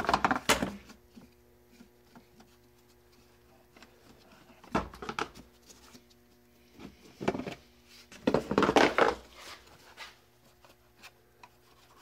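Hard plastic parts of a 2002 Pontiac Montana HVAC airbox knocking, clicking and scraping against the housing as a piece is fitted and handled, in short bursts at the start, about five seconds in, and again around seven to nine seconds in.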